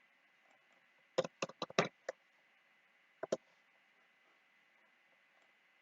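Computer mouse clicking: a quick run of about five clicks a little over a second in, then a double click a little past three seconds, over a faint steady hiss.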